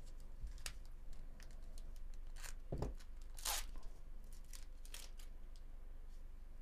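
A foil wrapper on a baseball card pack being torn open and crinkled, heard as a string of short crackles. There is a dull knock a little under three seconds in, then the loudest, longer tear about half a second later.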